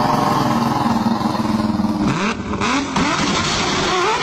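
An engine running steadily, then revving in repeated rising and falling swells from about two seconds in.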